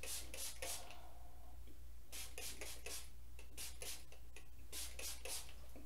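Small pump spray bottle of aftershave spritzed in quick runs of short hissing puffs, about a dozen in three or four bursts.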